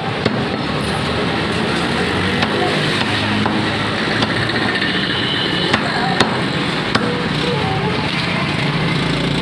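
A few sharp, irregularly spaced knocks of a butcher's knife and cleaver against a wooden chopping block as chicken is cut up, over a steady background din of voices.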